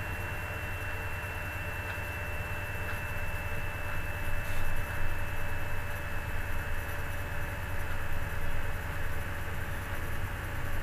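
Steady background hum and hiss, with a strong low hum, a thin high whine, and a slight swell in loudness around the middle.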